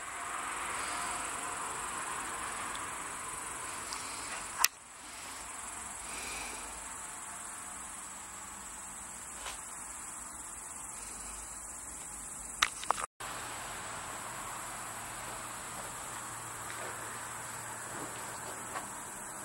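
Crickets chirring in a steady, high-pitched trill, with a few sharp clicks, the loudest about five seconds in. A faint low hum joins about two-thirds of the way through.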